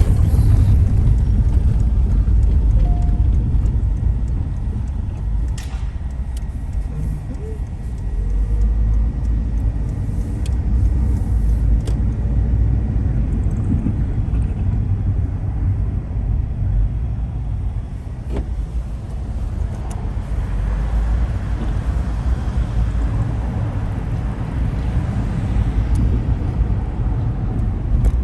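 Car driving in city traffic, heard from inside: a steady low rumble of engine and road noise, with a few faint clicks.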